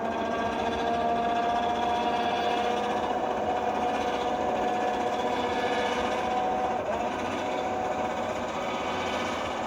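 Electric lift motor of a Bundutop pop-up truck tent running steadily, a continuous motor whine as it drives the tent.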